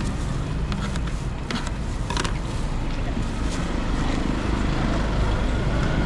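A steady low background rumble, with a few sharp metallic clicks in the first two seconds or so from scissors cutting and being handled on the stall's metal tray.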